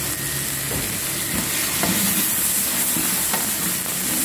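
Chicken cubes sizzling in hot oil in a large metal pot, stirred with a spatula that scrapes across the pot several times.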